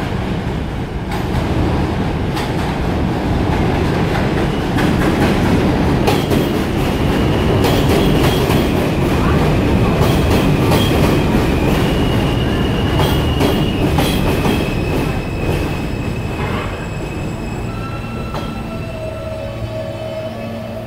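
New York City subway train running through the station, its steel wheels clacking over rail joints with high steady squeals. It grows louder over the first few seconds, then eases slightly toward the end as the train slows.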